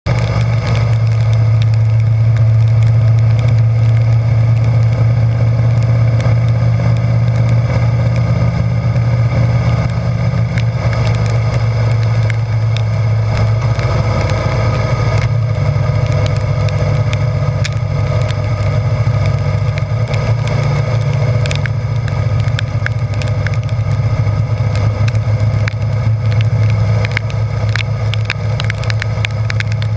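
Harley-Davidson Breakout's V-twin engine running steadily while riding on a wet road in the rain, with wind noise and rain rushing. Raindrops tick sharply on the camera, more often near the end.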